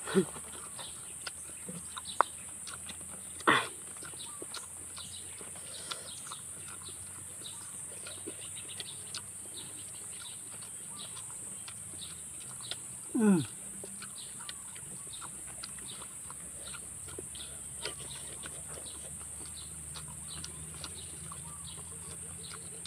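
Chickens calling: a few short squawks falling in pitch, the loudest about three and a half seconds in and a longer one around thirteen seconds, over a steady high hiss and quiet clicks and slurps of noodle eating.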